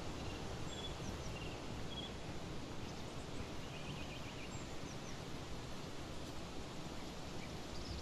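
Forest ambience: a steady rushing noise with a few faint, short, high bird chirps scattered through it, and a brief chattering call about four seconds in.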